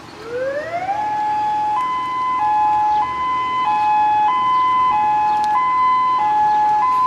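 Emergency alert alarm tone: the pitch sweeps up over about the first second, holds, then switches back and forth between two tones, each held a little over half a second, in a hi-lo siren pattern.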